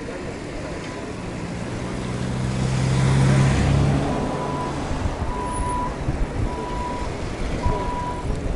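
A motor vehicle passing close by: engine and tyre noise swell, peak about three seconds in, then fade. After it, a short high beep repeats about once a second over steady road noise.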